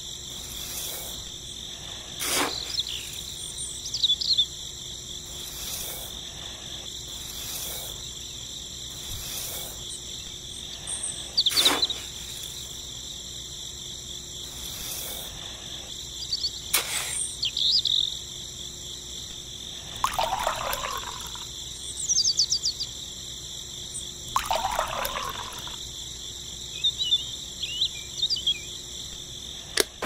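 Crickets trill steadily, with occasional bird calls. A few short, sharp scrapes or clicks stand out now and then.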